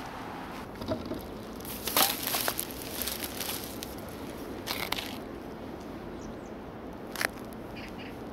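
Steady background noise with a handful of short, sharp crinkling clicks and rustles, the loudest about two seconds in.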